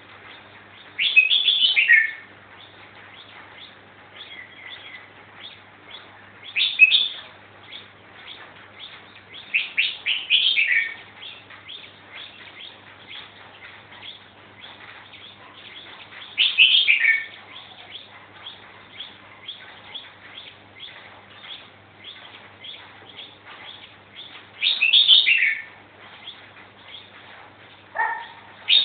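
A five-month-old caged songbird singing: about five short, bright phrases, each about a second long and falling in pitch, spaced several seconds apart, with faint chirping in between.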